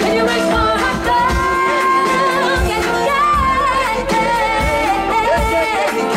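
Live band playing an upbeat song: a singer's voice carries the melody over drum kit and guitar, with a steady beat.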